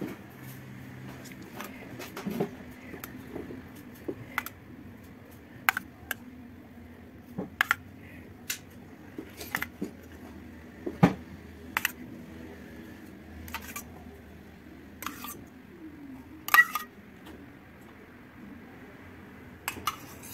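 A metal spoon clinking against a metal bowl and tray while custard cream is spooned into dough rounds: about fifteen sharp clicks at irregular intervals.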